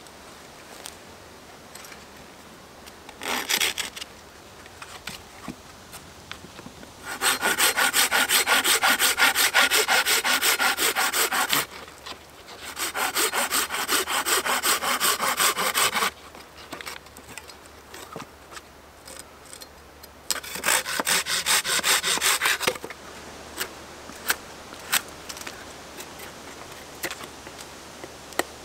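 Hand saw cutting through a freshly felled green maple log in fast, even strokes: a short burst about three seconds in, then three longer runs of sawing with brief pauses between them. A few light ticks follow near the end.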